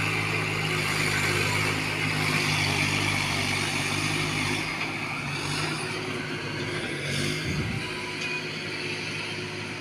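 Heavy diesel engines of a JCB backhoe loader and tractors running, a steady drone that eases off about halfway through, with a brief low thump near the end.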